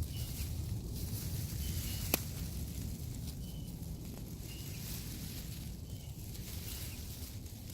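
Outdoor ambience: a steady low rumble and hiss, with a bird giving short high chirps every second or so. One sharp snap about two seconds in.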